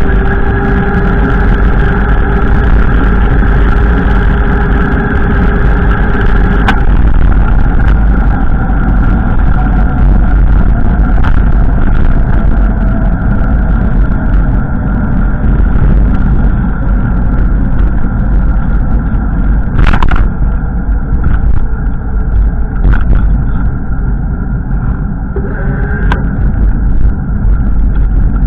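Strong wind buffeting the microphone: a loud, constant low rumble. Faint steady tones sound underneath and stop about seven seconds in, with a few sharp clicks later on.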